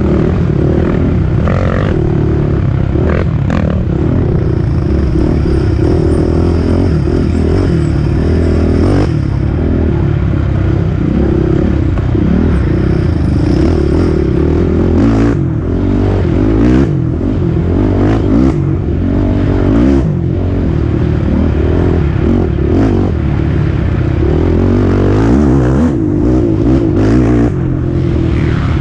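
Racing quad's engine running hard, its pitch rising and falling with the throttle, with frequent short knocks and rattles from the machine bouncing over the rough dirt trail.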